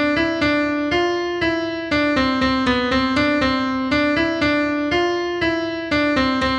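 Piano playing a simple melody in C, note by note in quarter and eighth notes: the two bars that end in a repeat sign. About four seconds in it goes back to the opening bar and begins the phrase again, as the repeat sign directs.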